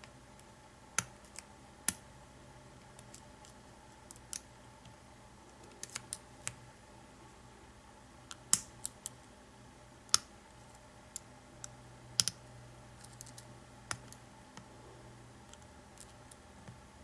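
Irregular light metallic clicks and ticks of a hook pick and tension bar working the pins inside an American 700 series padlock, the loudest about halfway through. A faint low hum lies underneath.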